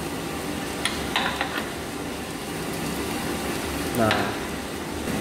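Drum coffee roaster turning with a batch of Arabica beans tumbling inside, a steady rushing sizzle, with a few sharp pops about a second in as first crack tails off.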